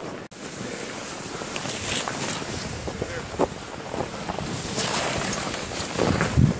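Wind buffeting the body-worn camera's microphone, with a loud low gust about six seconds in, over the crunch of footsteps and a loaded sled dragging over snow.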